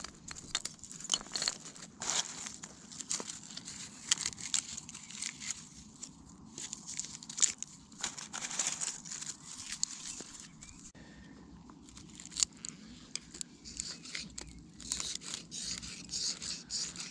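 Dry split kindling and sticks being handled and set down on beach pebbles: irregular clacks of wood, crunching stones and a rustle of dry tinder. Near the end a knife works at the tinder, with a quicker run of small scrapes and clicks.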